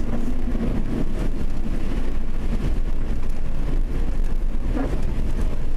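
Steady engine and road noise from inside a car driving along a wet, slushy street, with no pauses or sudden changes.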